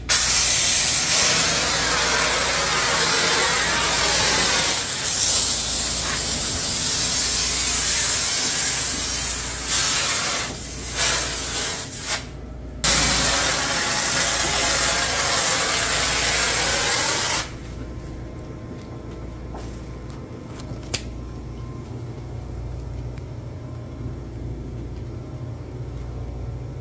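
Compressed-air foamer gun (GP-5000 Grease Police foamer) spraying foam degreaser: a loud steady hiss. The hiss breaks off briefly a few times between about ten and thirteen seconds in, then stops about seventeen seconds in, leaving a low steady hum.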